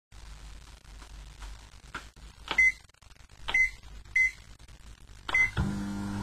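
Microwave oven keypad being pressed: four clicks, each with a short high beep, roughly a second apart. A little after five seconds the oven starts running with a steady hum.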